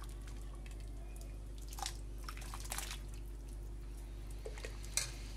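Wooden spoon stirring thick soup in an enamel bowl, the liquid sloshing with a few short, sharper splashes about two seconds in and again near the end, over a steady low hum.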